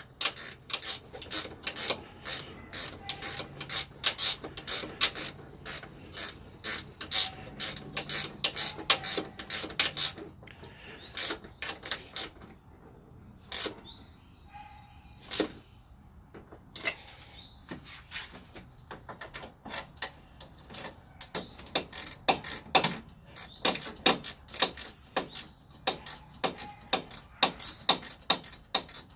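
Ratcheting wrench clicking in quick runs as 10 mm bolts are turned. The clicks thin out to a few scattered ones for several seconds midway, then resume.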